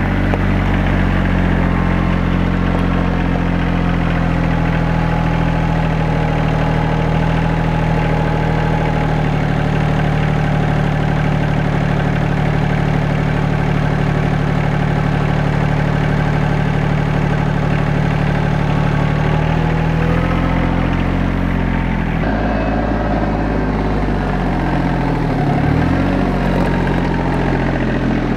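RK compact tractor's diesel engine running steadily. After about twenty seconds its speed changes, with the pitch dipping and coming back up as the loader tractor is worked and driven off.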